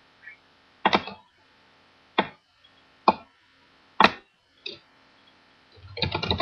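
A series of sharp clicks or taps, roughly one a second, then a quick cluster of knocks near the end.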